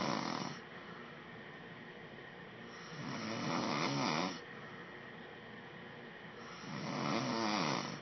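A man snoring in his sleep: three loud, rasping snores about every three and a half to four seconds. The first fades just after the start, the second runs from about three seconds in, and the third begins near the end.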